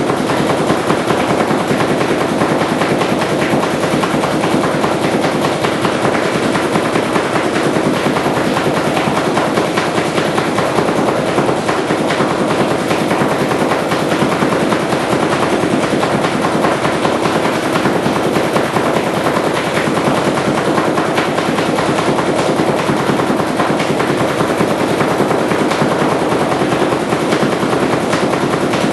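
Empire Magna paintball marker firing ReBall reusable balls in a rapid, unbroken string of shots.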